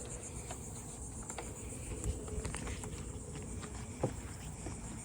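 Steady high-pitched insect chorus, with scattered light clicks and ticks, one a little louder about four seconds in.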